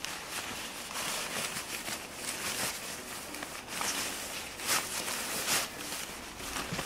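Oxford 210 tent fabric and its carry bag rustling and swishing in irregular strokes as a folded winter tent is pushed down into the bag.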